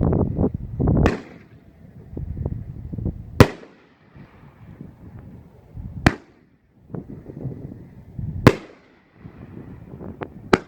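Nine-shot 3-inch shell cake firing, one shell at a time: a deep thud as each shell is launched, followed by a sharp bang as it breaks overhead. Five bangs come about every two and a half seconds.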